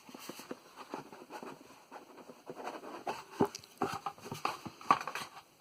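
Cardboard watch packaging being handled and opened: irregular light taps, clicks and rustles, with a few sharper knocks in the second half.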